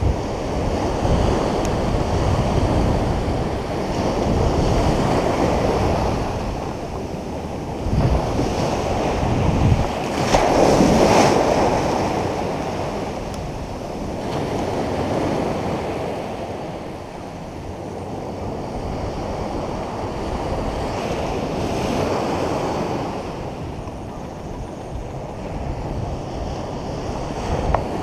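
Ocean surf breaking and washing up a sandy beach, swelling and ebbing every few seconds, with the loudest surge about ten seconds in. Wind buffets the microphone.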